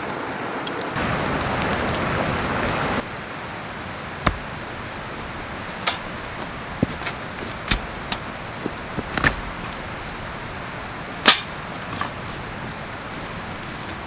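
A Husqvarna axe striking wood on a chopping stump: a string of sharp knocks, irregularly spaced, the loudest about eleven seconds in. Before the knocks, about two seconds of louder hiss.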